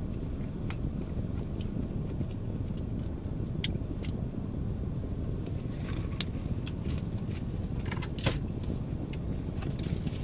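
A person chewing food, with a few sharp clicks from handling a plastic condiment cup and lid, the loudest about eight seconds in, over a steady low rumble inside a car.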